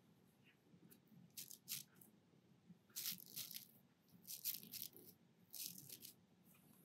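Faint, short scratchy flicks of a thumb drawn across the bristles of a paint-loaded toothbrush, spattering watercolour onto paper. They come in several brief bursts a second or so apart.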